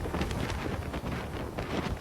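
Strong storm wind blowing across the microphone: a steady low rumble with irregular gusty buffeting.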